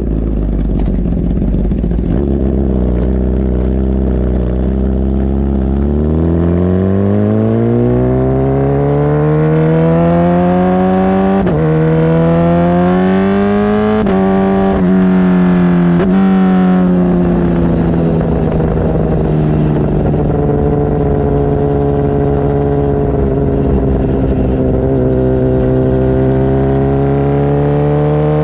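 Kawasaki ZX10R inline-four running through a Brocks titanium CT megaphone exhaust, its note rising steadily under acceleration. It is broken by short drops about halfway through, then eases off and settles into a steadier note.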